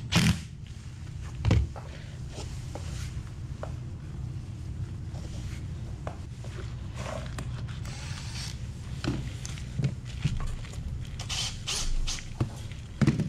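Scattered knocks and clunks of hand work, the loudest about a second and a half in, as cordless power tools are set down on the fiberglass floor. A steady low hum runs underneath.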